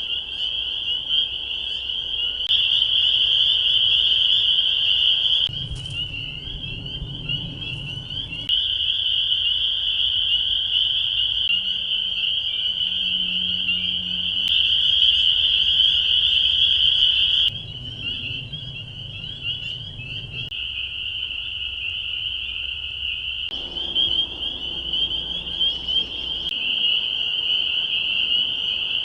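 Dense chorus of spring peepers: many high peeps overlapping into a continuous shrill trill. Its loudness steps up and down abruptly several times.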